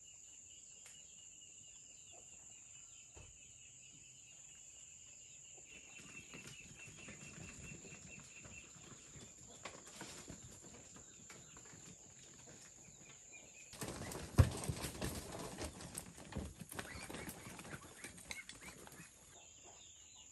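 Insects buzzing steadily in the background, with scuffing footsteps and rustling on a dirt yard. About two-thirds of the way through, a louder stretch of scuffling and knocking lasts several seconds.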